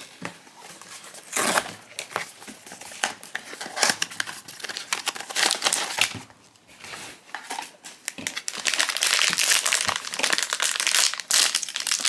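Foil blind-box pouch and its cardboard box crinkling as they are handled and opened. After a short lull midway there is dense, near-continuous foil crinkling for the last few seconds as the pouch is worked open.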